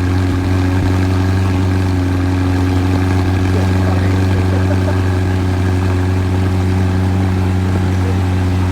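McLaren Senna's twin-turbo V8 idling steadily at a constant, unchanging pitch.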